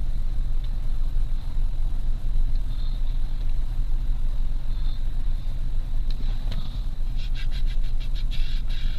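Steady low rumble of a car driving, heard from inside the cabin. Near the end comes a quick run of clicks, about six a second.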